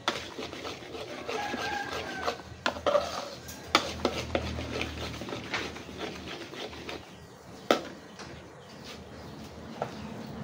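Metal spatula scraping and stirring around a steel wok of thick, bubbling sauce, with a few sharp clinks of the spatula against the pan.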